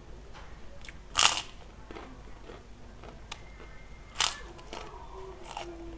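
Crisp white kerupuk cracker bitten and crunched: two loud sharp crunches, about a second in and again about four seconds in, with softer crunches of chewing between.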